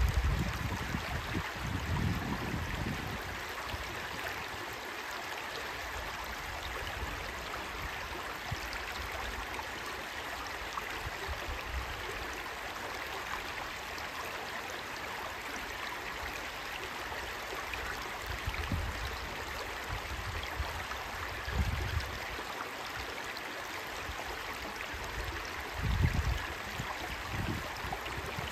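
Shallow rocky stream babbling steadily over stones, with a few brief low rumbles, the strongest at the very start and about two seconds before the end.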